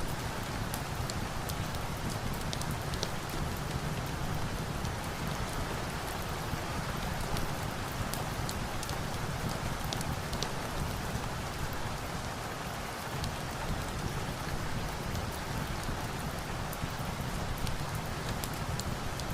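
Steady rain falling, mixed with scattered sharp crackles from a fireplace log fire.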